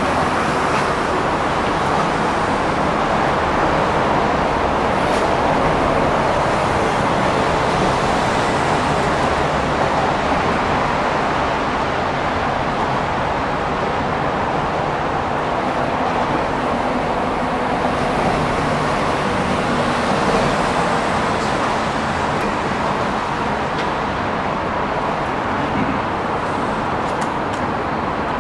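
Steady city traffic noise from cars and vans on an elevated expressway: an even, continuous hum with no single vehicle standing out.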